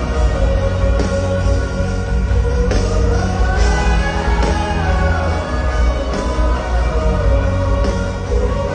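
Loud live rock music from a concert band playing an instrumental passage without singing, heavy bass under a melody line that rises and falls about midway.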